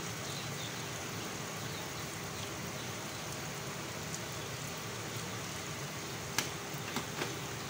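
Faint, steady sizzle of onions and tomatoes cooking in oil on the stove, with a few light clicks near the end.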